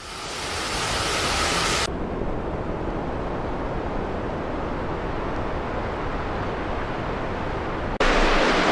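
Steady rushing of floodwater, changing abruptly in character about two seconds in and again near the end.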